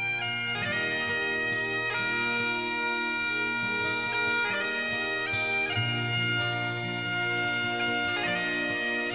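Background music: a slow bagpipe tune of long held notes over a steady low drone.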